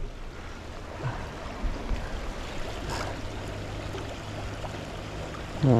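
Shallow river running over stones, a steady rush of flowing water.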